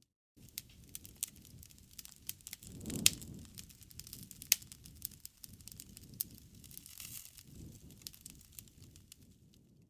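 Campfire burning: irregular wood crackles and pops over a low rush of flames, with one louder pop about three seconds in.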